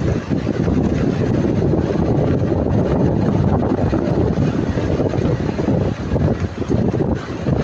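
Lada Niva Travel driving over an uneven dirt road: a steady rumble of tyres, suspension and engine, with no rattle heard from the front brake pads, which have been filed down to cure their rattling over bumps.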